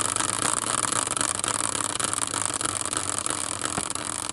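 Caster wheel spinning freely on its axle, a steady whir with faint fine clicks, easing off slightly as it slows.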